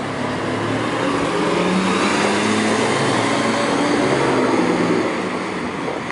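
Lamborghini Aventador's V12 engine running as the car drives along the street and away, its exhaust note building through the middle and easing off near the end.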